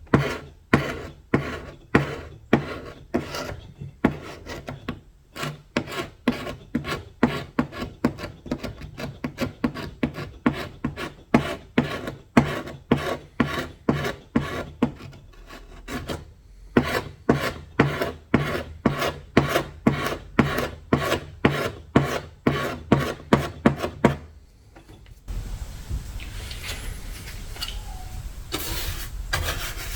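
Quick back-and-forth hand strokes stripping old paint and finish off wood, about two to three strokes a second, with a brief pause partway through. Near the end the separate strokes give way to a steadier rough rubbing.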